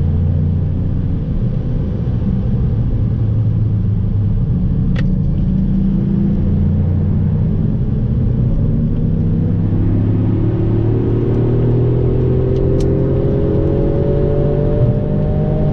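Toyota Yaris engine and road noise inside the cabin: the engine runs at a steady pitch through the corners, then climbs steadily in pitch through the second half as the car accelerates hard. Two or three faint clicks sound over it.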